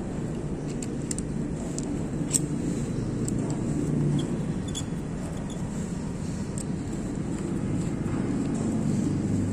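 A few light metallic clicks and taps as a hex key and the handle hub parts of a milling machine are worked by hand, the sharpest about two and a half seconds in, over a steady low background rumble.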